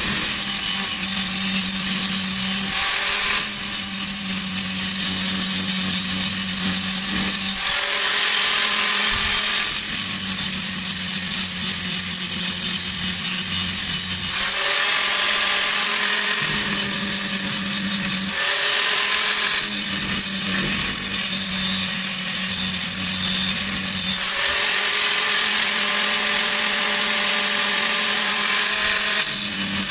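Angle grinder with a grinding disc cutting into the steel edge of an old axe head, a continuous high whine over a steady motor hum, its note shifting every few seconds as the disc bites. The chipped edge is being ground down and rounded to remove the chip.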